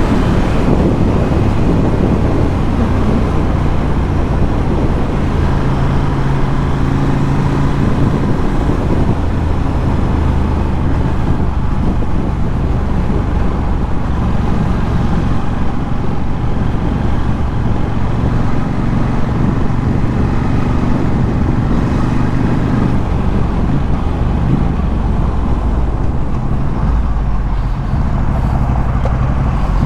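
Ducati Scrambler 1100's air-cooled L-twin engine running through a Termignoni exhaust at a steady cruise. The engine note holds fairly even, shifting a little in pitch near the end.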